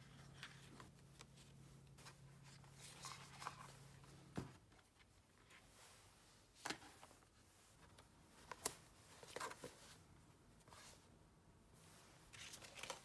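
Near silence with faint paper handling: a few soft rustles and light taps as the pages of a hardcover paper diary are turned and the book is laid down and closed. A low steady hum stops about a third of the way in.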